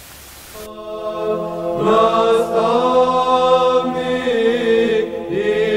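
Choral church chanting that begins under a second in: several voices singing slow, long-held notes with a steady underlying tone beneath a slowly moving melody.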